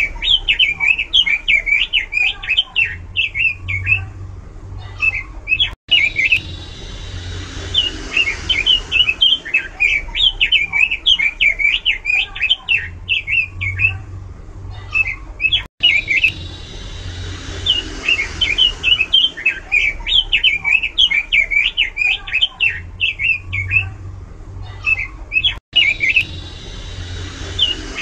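Pekin robin (red-billed leiothrix) singing loud, fast, varied warbling phrases. The same stretch of song repeats about every ten seconds, with a brief dropout at each repeat.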